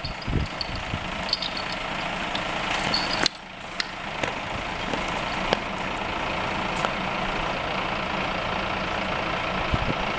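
Fire-fighting pump engine running steadily under load, with a constant hiss over it and a few knocks in the first second. The level drops suddenly about three seconds in, then builds back up.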